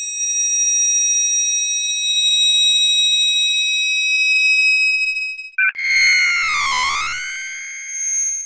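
Two synthesized sci-fi sound effects, one after the other. First a steady high electronic whine with a shimmering, wavering texture; about five and a half seconds in, after a brief break, a second electronic tone that glides down and then back up.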